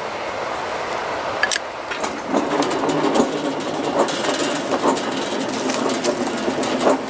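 Train passing out of view: a steady rumble of wheels on the rails with irregular clacks and rattles, growing busier about two seconds in.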